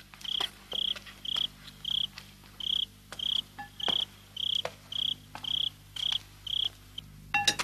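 Cricket chirping in a steady rhythm, about two short chirps a second, with a few faint clicks between the chirps.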